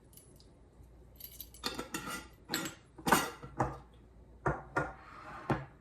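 A metal utensil clinking and scraping against a dish in about a dozen quick, irregular strokes, starting about a second in, as mashed eggplant choka is stirred.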